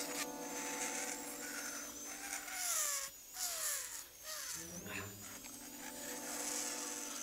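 High-speed dental drill whining as it works on a tooth, its high pitch wavering slowly. Lower sliding tones and a steady low hum run underneath, with brief dips about three and four seconds in.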